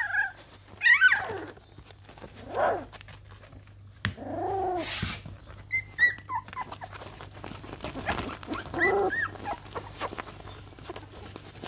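A litter of very young puppies whimpering, squealing and giving small growls and barks: a string of separate short cries that rise and fall in pitch, one lower and longer cry about halfway through.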